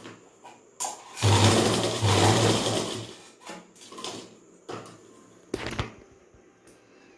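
Durby sewing machine stitching in one run of about two seconds, then stopping. A few clicks and knocks follow, the loudest about five and a half seconds in.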